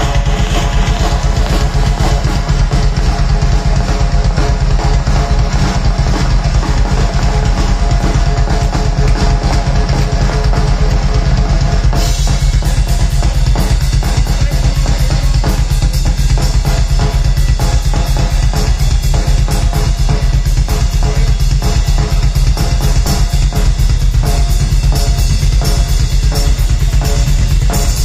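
Live heavy metal drum solo on a Natal drum kit with two bass drums: rapid, steady bass drum strokes under snare hits and cymbals. The cymbals get brighter about halfway through.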